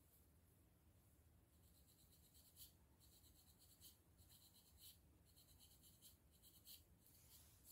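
Faint, rapid scratching of a dry, flaky scalp by a hand with fingernails and a comb, in quick short strokes that start about a second and a half in.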